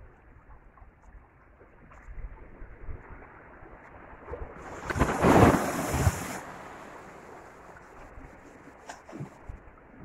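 Sea waves washing against shore rocks. About halfway through, one larger wave surges and breaks over them, the loudest moment, rising and falling away within about two seconds.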